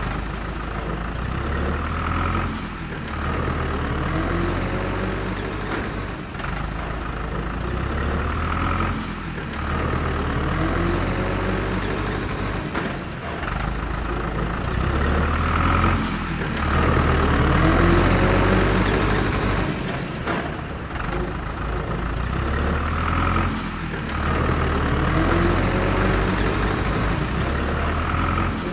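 Tractor engine running steadily, the same stretch of sound repeating every six or seven seconds like a loop.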